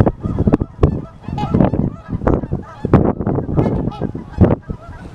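A flock of geese honking, many short calls overlapping one another throughout.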